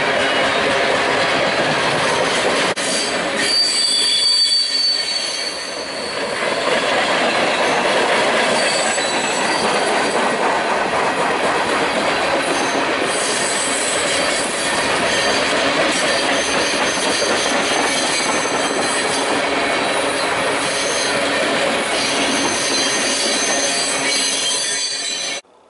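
Freight cars, tank cars among them, rolling past at close range: a steady loud rumble and rattle of steel wheels on rail, with high-pitched wheel squeal strongest about four seconds in and recurring later. The sound cuts off suddenly near the end.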